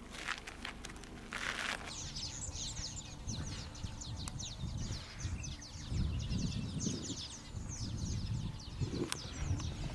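A couple of footsteps crunching on a dirt road, then from about two seconds in many birds calling at once in quick, short, high falling chirps, over a low rumble that swells in the second half.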